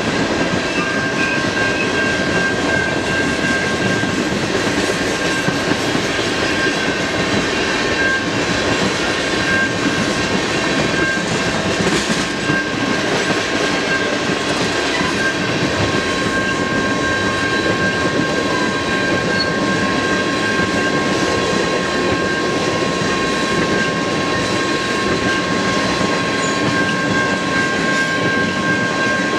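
Freight cars (tank cars, then covered hoppers) rolling past steadily, their wheels clacking over the rail joints. A steady high-pitched tone runs over the rumble, joined by a second, lower tone about a third of the way in.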